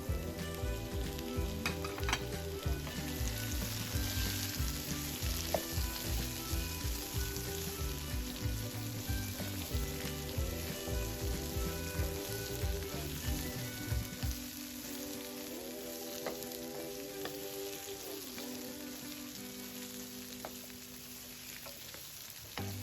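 Squash pieces and sautéed onions and garlic frying in oil in a pan, a steady sizzle. Background music with a beat plays underneath, and the beat drops out about two-thirds of the way through.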